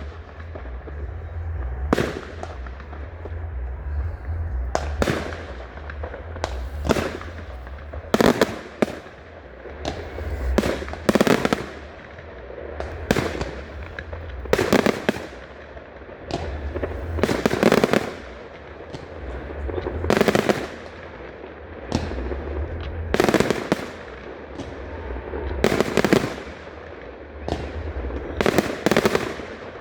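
Aerial fireworks display: a string of loud bangs, one every one to three seconds, each echoing briefly, over a steady low rumble.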